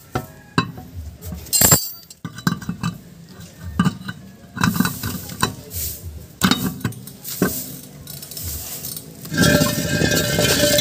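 A steel wheel rim being handled and fitted onto the hub's wheel studs: a run of irregular metallic clinks and knocks, with a longer, louder metallic scrape with a ringing tone near the end.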